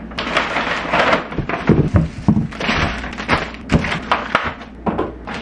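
Groceries being unpacked from reusable shopping bags onto a wooden table: plastic packaging crinkling and rustling, with repeated thunks as items are set down.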